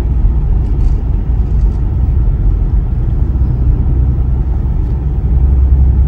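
Steady low rumble of a car's road and engine noise, heard from inside the moving car's cabin, growing a little louder near the end.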